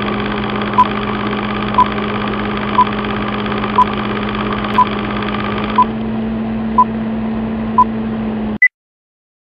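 Film-style countdown sound effect: a steady hum and hiss with a short beep once a second, eight times, ending in a single higher-pitched beep, after which the sound cuts off suddenly.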